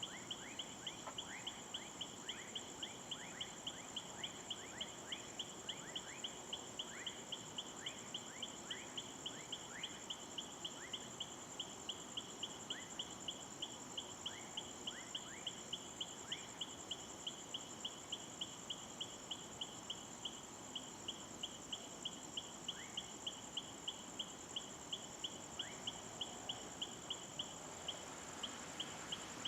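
Faint night chorus of insects: a steady high trill with a sharp chirp repeating about two to three times a second. Short rising calls are scattered among them, frequent at first and sparse later.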